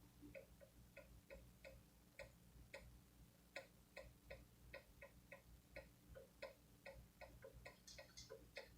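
Faint, light ticking, about two to three irregularly spaced ticks a second.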